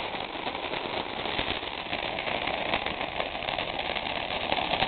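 Lit handheld sparklers fizzing with a steady crackle.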